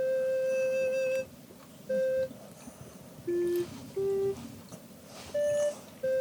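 Background music: a slow melody of single held notes, a long one at the start and then shorter notes with pauses between them.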